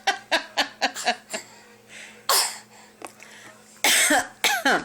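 A baby fake-coughing: a quick run of short, sharp coughs, then three louder, longer coughs, the last two sliding down in pitch.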